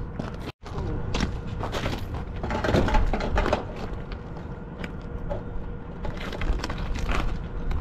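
Crunching steps on a gravel-ballasted roof and scattered knocks of rigging being handled, over a steady low rumble with a faint hum. The sound drops out for a moment about half a second in.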